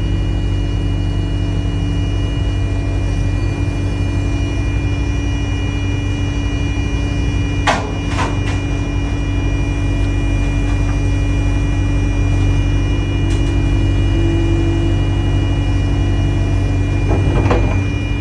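Excavator's diesel engine running steadily while the machine is worked onto a trailer, with a sharp squeal about eight seconds in and a few more creaking squeals near the end.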